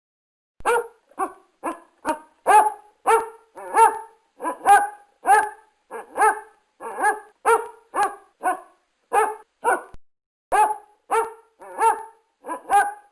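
A dog barking repeatedly, about twenty short barks at roughly two a second.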